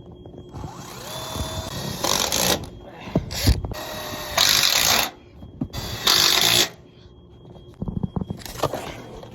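Handheld power tool running in several short bursts, the longest about two seconds, with knocks between them.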